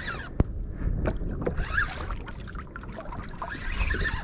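Water sloshing around a small fishing boat, with wind on the microphone and a sharp click about half a second in.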